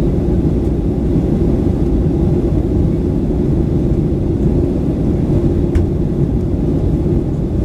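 Steady, loud low rumble inside the cabin of a Boeing 737-900: its CFM56-7B engines and the airflow, heard from a window seat behind the wing.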